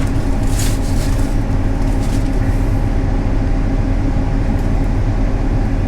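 Steady low drone of a John Deere S780 combine running, heard from inside its cab.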